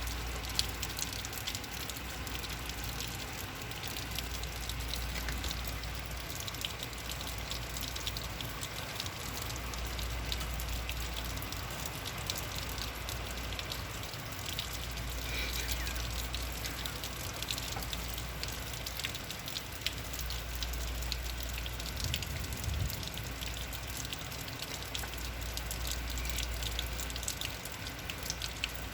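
Heavy rain falling steadily, with many separate drop hits heard through the wash. A low rumble swells and fades underneath several times.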